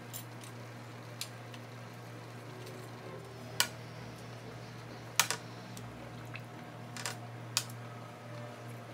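Metal tongs clicking and tapping against a glass stock pot while fish bones are dropped in, about six sharp clicks over a steady low hum.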